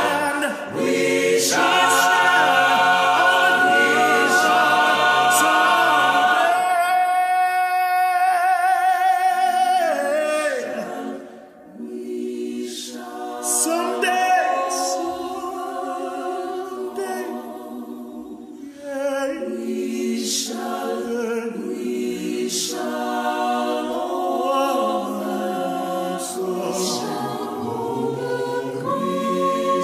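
Gospel choir singing in harmony behind a male lead singer. About a quarter of the way in, the soloist holds one long wavering note over a thinned-out choir, and after a short dip the full choir comes back in.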